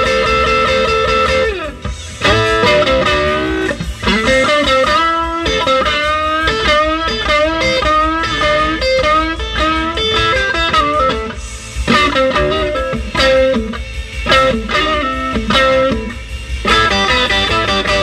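Electric guitar, a Stratocaster, played through a 1960 Fender Tweed Bassman amplifier that has just had a leaky Astron filter capacitor replaced with a new Mallory 150. It plays single-note lead lines with string bends and vibrato, opening on a held note that slides down about a second and a half in. The notes are clearly defined, showing the amp now running correctly.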